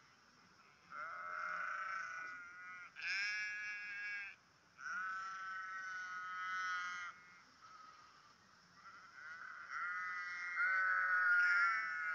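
Sheep bleating: four drawn-out bleats, each one to two seconds long, with the last and longest, near the end, the loudest.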